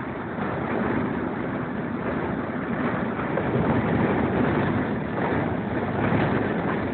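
Steam-hauled train running along the track, heard from an open carriage window: a steady rush of running noise and wind buffeting the microphone.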